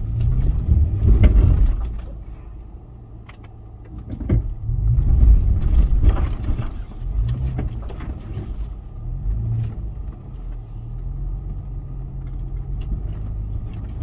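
Off-road 4x4's engine running under load, its revs rising and falling repeatedly, with occasional short knocks.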